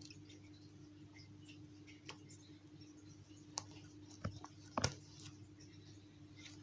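A few soft clicks and knocks over a steady low hum, the loudest a quick double knock about three-quarters of the way through.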